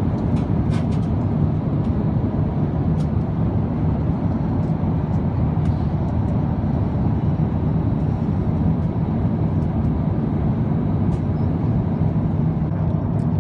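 Steady cabin noise of an Airbus A350-900 airliner in flight: an even, unbroken low rumble, with a few faint clicks.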